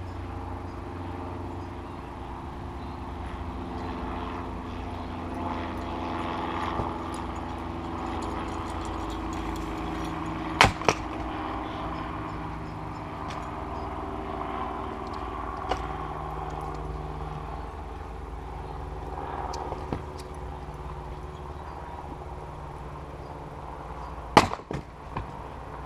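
Cyclone 2.5 kg splitting maul striking firewood rounds: a sharp double crack about eleven seconds in, a lighter knock around sixteen seconds, and the loudest blow near the end, followed by a couple of smaller knocks. A steady low hum runs underneath.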